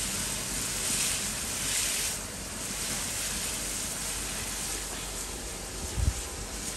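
Food frying in hot oil in a pan, a steady sizzling hiss, with a brief low thump about six seconds in.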